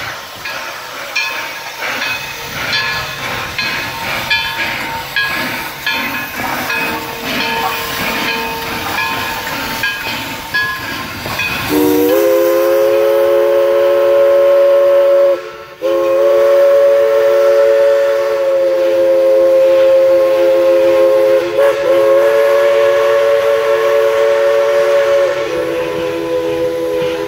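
Baldwin 2-8-2 steam locomotive moving through a rail yard with metallic clanking and squealing for about twelve seconds, then its chime steam whistle sounds a long chord of several notes, broken once briefly, held nearly to the end.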